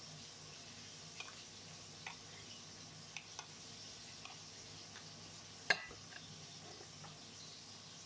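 Faint, scattered light taps of a plastic rice paddle against a small ceramic bowl as rice is scooped and pressed into it, with one sharper knock about two-thirds of the way through.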